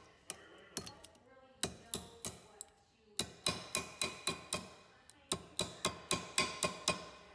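Ball-peen hammer tapping a copper habaki around a steel blade's tang on a bench vise, closing the collar. Runs of five to eight quick metallic strikes, several a second, each with a short ring, separated by brief pauses.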